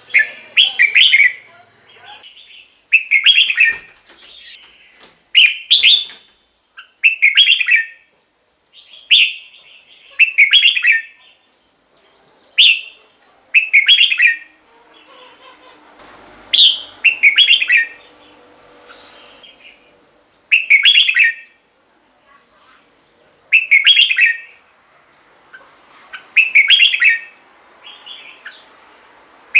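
Red-whiskered bulbul singing: short, bright, loud phrases repeated about every one and a half to two seconds, with brief pauses between.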